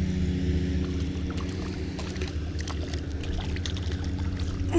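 A steady low engine drone, with scattered light clicks over it.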